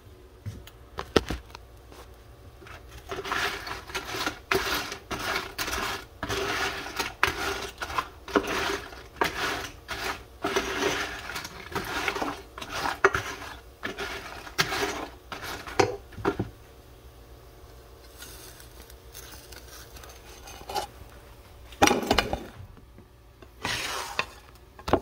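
A utensil scraping and clinking against a frying pan in repeated stirring strokes, about one and a half a second, as tortilla pieces are turned in hot oil to brown. The strokes stop after about 16 seconds, and a couple of sharp knocks follow near the end.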